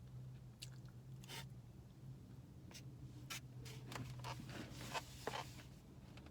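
Scraping and rustling of a utensil in a takeout food container, with scattered clicks, busiest about four to five and a half seconds in, over a steady low hum.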